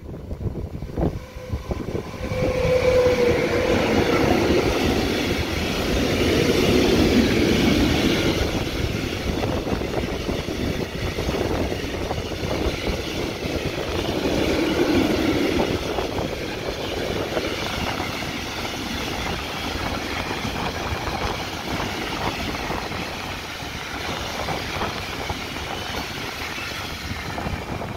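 A freight train of tank wagons, hauled by a Class 189 electric locomotive, passing close by. Its wheels rumble and clatter on the rails with many short clicks and knocks. The noise is loudest as the locomotive and first wagons go by a few seconds in, then continues steadily as the wagons roll past.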